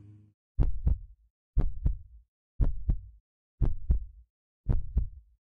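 Heartbeat sound effect: deep double thumps, lub-dub, about once a second, five beats in a row.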